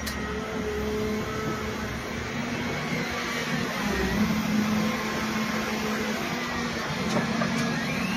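Volvo wheeled excavator's diesel engine and hydraulics running steadily under load, with a whine that drifts in pitch as the boom and stump shear are worked.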